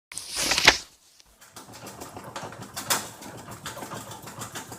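Front-loading washing machine shaking during its spin cycle: a loud rushing burst near the start, then irregular knocking and rattling, one louder knock about three seconds in. It is the vibration and noise of a machine that is badly installed, for example with its transit bolts still fitted, or that has been moved.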